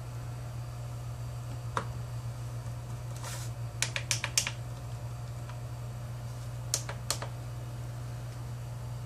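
Front-panel push buttons of an Owon SDS7102V digital oscilloscope clicking as they are pressed: one click about two seconds in, a quick run of four or five near the middle, and two more a little later. A steady low hum runs underneath.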